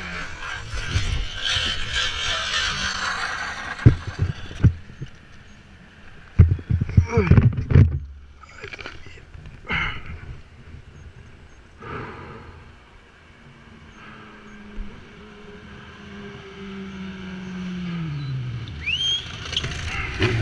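Motorcycle crash aftermath picked up by the rider's body-worn camera: a hiss of sliding along asphalt at first, then scattered knocks and thumps as the camera is jostled. Past the middle, a passing car's engine hums steadily and then drops in pitch as it goes by.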